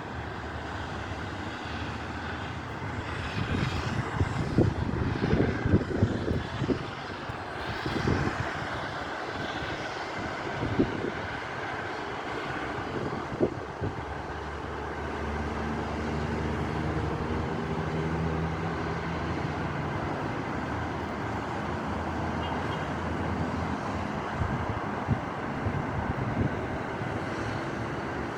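Strong wind buffeting the microphone in gusts, over a steady wash of road traffic. From about halfway an engine drone comes in and slowly rises in pitch toward the end.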